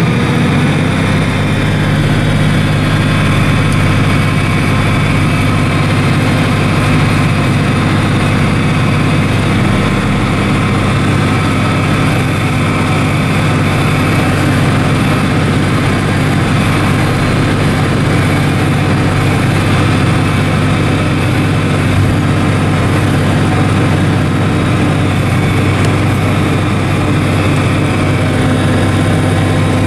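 John Deere 4055 tractor's six-cylinder diesel running steadily under load while it drives a New Holland FP230 forage harvester chopping standing corn for silage: an even engine drone mixed with the chopper's machinery noise, with no change in pace.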